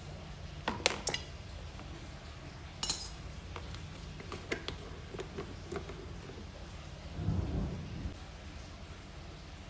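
Long steel feeding tongs clicking about a second in, then set down with a sharp metallic clink on tile, followed by a few light taps. Near the end, a low rumbling scrape of the clear plastic tub and its lid being handled.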